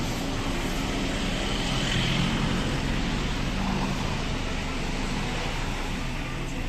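Street traffic noise, with a motor vehicle engine running close by and growing a little louder about two seconds in before easing off.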